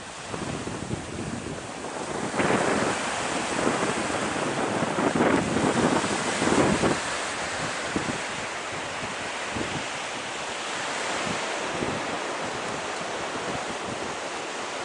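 Ocean surf washing onto a sandy beach, with wind buffeting the microphone. The waves surge louder a few times in the first half.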